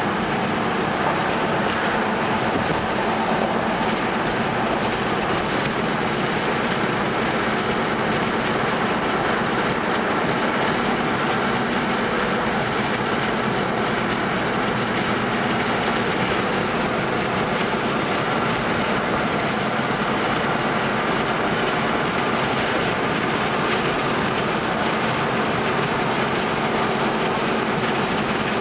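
Steady road noise of a car driving at speed: tyres rolling on pavement and the engine running, holding an even level throughout.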